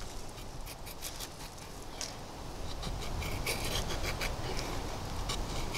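Condor Woodlaw bushcraft knife shaving curls of wood off a stick as it carves a point: a run of short, dry scraping strokes. The strokes come thicker and a little louder from about halfway.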